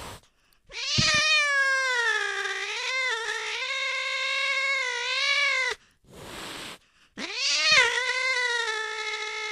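Domestic cat yowling in two long, drawn-out, wavering calls. The first lasts about five seconds; the second starts about seven seconds in, after a short breathy pause.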